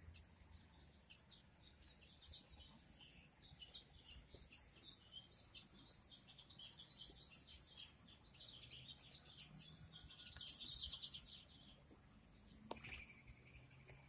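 Faint chirps and calls of small songbirds, scattered and short, with a louder flurry of quick repeated notes about ten seconds in.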